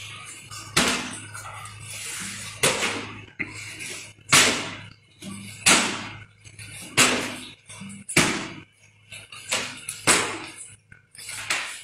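A run of sharp smacks or bangs, about eight or nine, coming every second and a half or so, each dying away in a short noisy tail.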